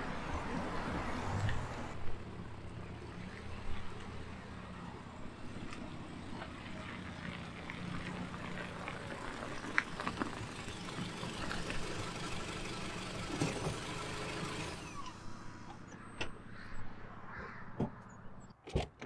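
Toyota Corolla running at low speed and idling, a steady hum. About fifteen seconds in it goes quieter, and a few sharp clicks follow near the end.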